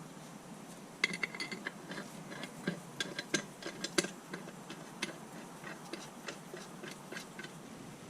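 Irregular light metallic clicks and taps of hand tools and engine parts being handled, thickest in the middle and loudest around the middle.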